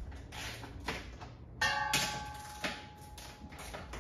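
Metal hardware clinking and tapping as a wall-mounted hose reel is fitted. One louder metal clank about one and a half seconds in rings on briefly.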